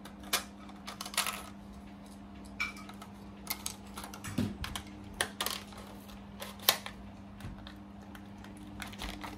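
Irregular clicks and knocks of hard plastic as a cordless knife sharpener and its battery pack are handled and checked for a loose battery fit. A steady low hum runs underneath.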